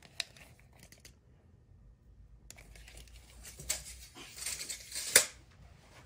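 Rustling and crinkling of packaging being handled, with a sharp click about five seconds in.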